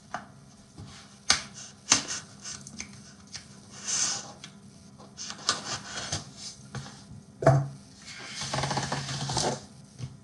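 Styrofoam shipping box being cut and worked open with a dull knife: scattered sharp clicks and scrapes of the blade on tape and foam, with longer rasping, rubbing strokes about four seconds in and near the end.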